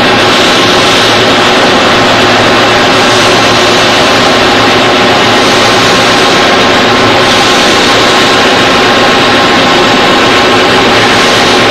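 Large CNC floor-type horizontal boring mill running in a machine shop: a loud, steady mechanical drone with a low hum and a constant whine over it, unchanging throughout.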